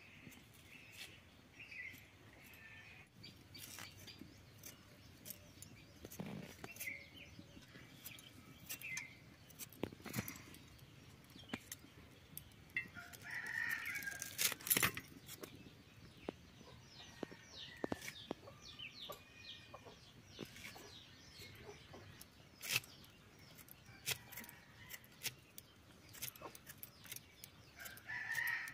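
Chickens clucking, with a rooster crowing around the middle and again near the end, over scattered sharp ticks of fresh coriander being cut on a bonti, a curved blade held upright on the ground.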